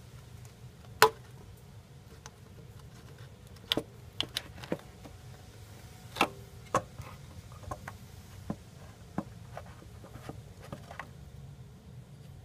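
Irregular sharp clicks and knocks of a plastic thermostat housing and its hose connection being worked loose and pulled off a Ford 4.0L V6 engine. The loudest knock comes about a second in, another around six seconds in.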